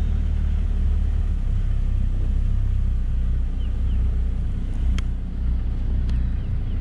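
Open safari vehicle's engine running steadily in low gear as it drives slowly off-road through tall grass, a continuous low rumble. A couple of sharp clicks come about five and six seconds in.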